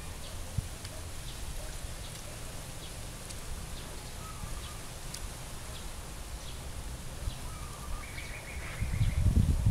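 Outdoor rural ambience: scattered short bird chirps and calls over a steady low rumble of wind on the microphone, with a louder low rumble near the end.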